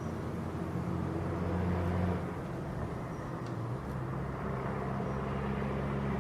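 Motor vehicle engine running with a steady low hum; its tone changes about two seconds in and again near four seconds.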